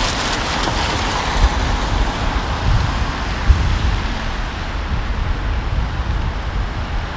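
Wind gusting on the microphone as an uneven low rumble, over a steady hiss of rain.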